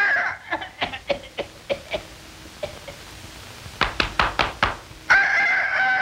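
Cartoon sound effects for a metal bird: a run of sharp knocks, then about five seconds in a held rooster-like crowing call.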